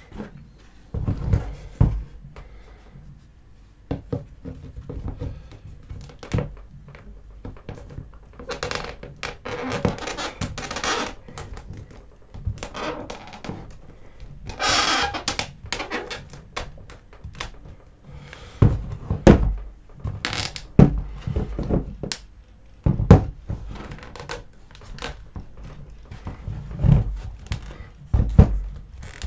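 Hollow plastic action-figure parts being handled and pressed together on a cutting mat: irregular knocks and thunks as the arms are fitted onto the body, with a couple of longer rubbing, scraping stretches in the middle.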